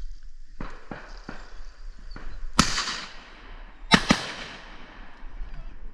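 Shotgun blasts at ducks: one about two and a half seconds in, then a quick pair about a second and a half later, each with a trailing echo. A few fainter knocks come before them.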